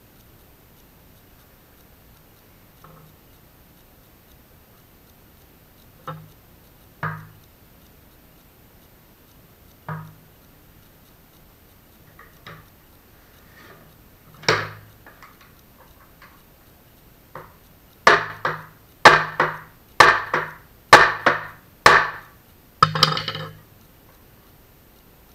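A few scattered knocks on wood, then a run of about half a dozen hard hammer strikes on wood near the end, roughly one a second, some coming in quick pairs.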